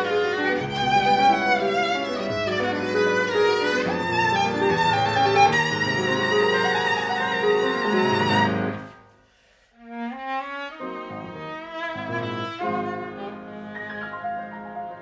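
Viola and piano playing classical chamber music: a full, loud passage that dies away about nine seconds in to a moment of near silence, then resumes more quietly with shorter, separated notes.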